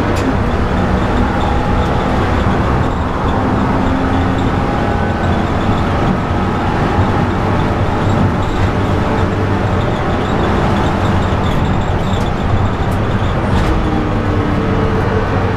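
Cabin noise of a BMW E90 330i being driven hard on track: its straight-six engine running at speed under a steady, loud din of tyre and road noise.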